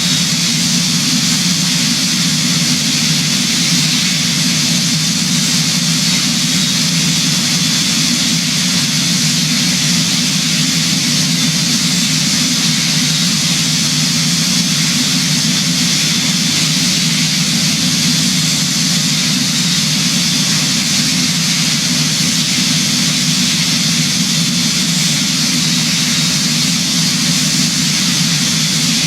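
Jet aircraft running steadily: an even engine drone under a loud hiss of rushing air, unchanging throughout.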